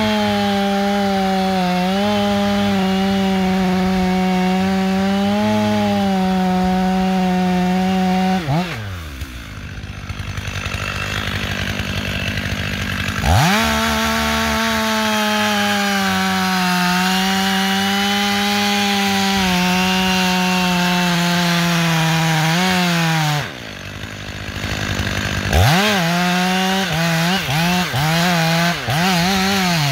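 Stihl MS 500i two-stroke chainsaw cutting into a standing beech trunk at full throttle. It falls back to idle twice, about nine seconds in and again about 23 seconds in, and revs back up into the cut each time. Near the end the engine note dips and recovers several times as the chain loads in the wood.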